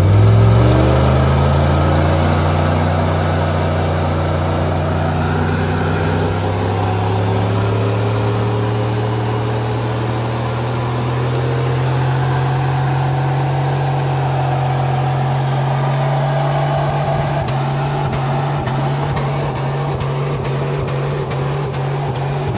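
Dodge Ram 1500 pickup doing a burnout with its rear tires spinning on a trailer's metal fender: the engine is revved up hard and held at high revs, its pitch creeping slowly higher. In the last several seconds the engine note flutters rapidly.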